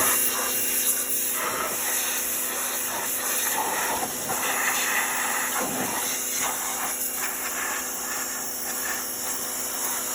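Pressure washer running: a steady hiss of high-pressure spray over a steady machine hum.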